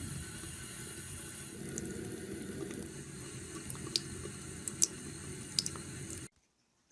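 Steady rush of running water, like a tap running, with a few sharp clicks over it; it cuts off suddenly near the end.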